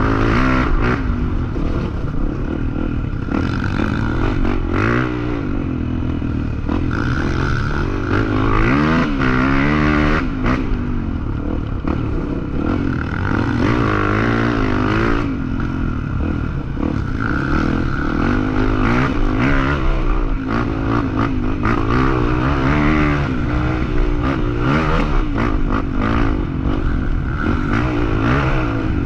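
Off-road trail motorcycle engine revving up and down over and over as it is ridden hard over rough ground, with clattering knocks from the bike jolting over the terrain.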